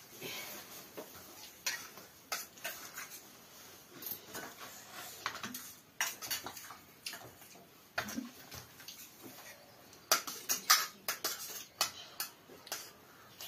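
Metal dishes and utensils clinking and tapping in irregular short knocks, as food is handled at a meal.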